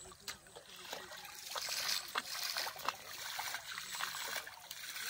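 Water scooped with a metal bowl at the pond's edge and tossed out onto the surface, splashing and trickling, in swells about two seconds in and again about four seconds in.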